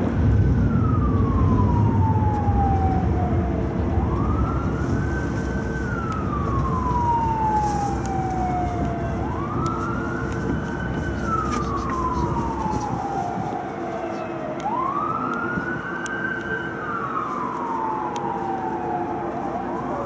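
Emergency vehicle siren wailing, sweeping slowly up, holding briefly and falling again about every five seconds, four cycles in all, over a steady low hum.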